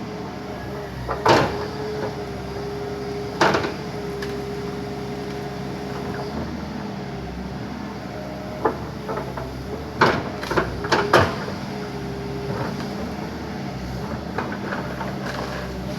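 Backhoe engine running steadily with a wavering hydraulic whine, broken by sharp cracks and knocks: two single ones a couple of seconds apart, then a quick cluster of them about ten seconds in, as the machine knocks down and crushes trees.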